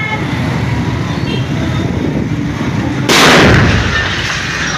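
A single loud explosion about three seconds in, sudden and dying away over about a second, over a steady background din.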